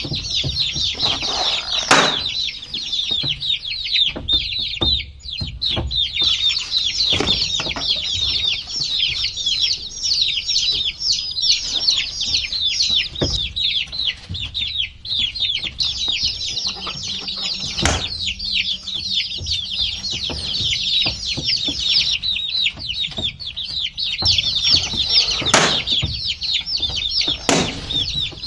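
A brood of baby chicks peeping continuously, many overlapping high cheeps that each fall in pitch. A few sharp knocks stand out about 2, 18, 25 and 27 seconds in.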